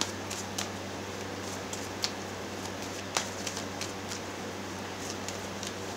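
Steady low hum of room background noise, with a few faint, scattered clicks and taps.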